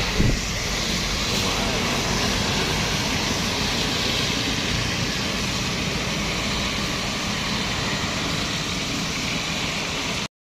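Road traffic: heavy vehicle engines running steadily under tyre and road noise, with a single knock just after the start. The sound cuts out abruptly near the end.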